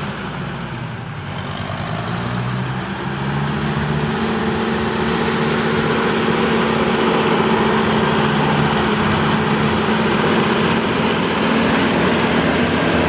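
Berliet military truck's engine running with its deep rumble. Its pitch rises and it grows louder over the first few seconds, then it runs on steadily.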